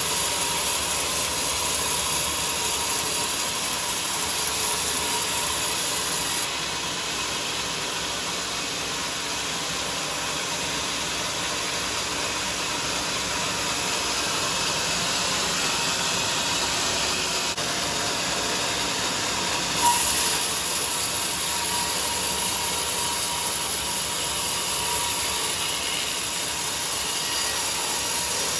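A sawmill saw cutting through a teak log, a steady mechanical cutting noise with a hiss, and a single sharp click about two-thirds of the way through.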